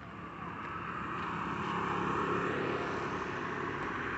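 A motor vehicle coming along the road, its engine and tyre noise growing louder over the first two seconds and then holding steady.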